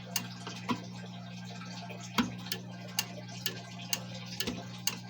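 Relay clicking inside an EST Edwards 6632 fire alarm control panel as it pulses the disconnected bell circuit: about nine sharp clicks, mostly about half a second apart, with one gap of about a second and a half after the second click. A steady low electrical hum runs underneath.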